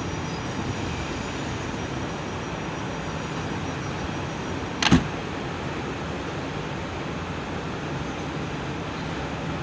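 Steady hum and noise of a railway terminus platform, with just-arrived Class 450 electric trains standing at the platform. One sharp knock comes about five seconds in.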